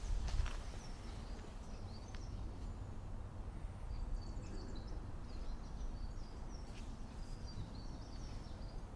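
Small birds chirping in many short high calls over a low steady rumble.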